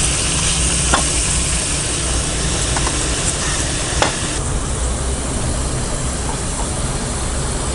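Hot oil sizzling steadily as gujiya pastries deep-fry in a kadai, with a few faint clicks. The hiss turns a little duller about four and a half seconds in.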